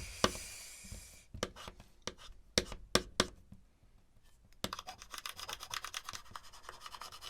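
Screwdriver tip scratching across a hard drive platter: a short scrape, then several separate clicks and taps, then from about halfway a dense run of rapid scratching ticks. The platter is being scored to destroy the data on it.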